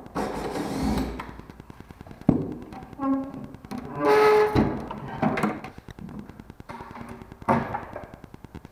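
Knocks and thunks on a wooden cedar hope chest as parts are worked off it, with two short squeaks about three and four seconds in.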